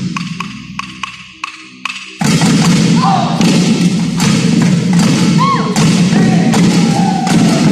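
Drum ensemble: a loud drum hit rings out. Drumsticks then tick together about twice a second as a count-in. About two seconds in, the whole group launches into loud, continuous drumming.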